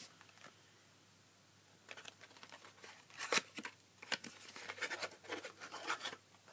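Crinkling and rustling of a white wrapper handled by hand, starting about two seconds in as a run of quick, irregular crackles.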